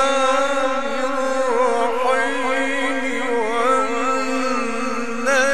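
A male Quran reciter's voice in mujawwad (melodic tajweed) style, holding one long drawn-out note with wavering ornaments; a higher phrase begins right at the end.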